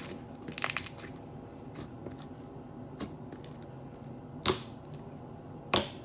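Slime being squished and popped by hand: a handful of short, sharp pops and crackles, with the loudest pops about four and a half seconds in and near the end.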